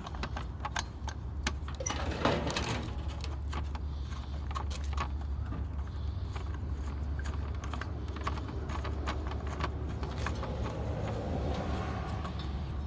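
Metal lug nuts being spun onto wheel studs by hand, giving scattered small metallic clicks and clinks, over a steady low hum.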